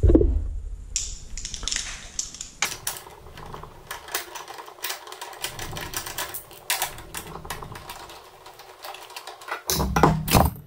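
Small ratchet wrench clicking rapidly as it backs out an 8 mm trim-panel bolt on a Briggs & Stratton small engine, with a knock at the start and a louder handling sound near the end.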